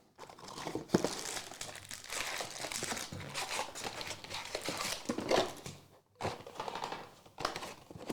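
Foil trading-card pack wrappers crinkling and tearing as packs are handled and ripped open by hand, with sharp crackles and a brief pause about six seconds in.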